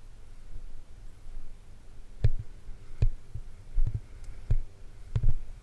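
Muffled low thumps repeating about every 0.7 seconds from about two seconds in, with a faint steady hum beneath.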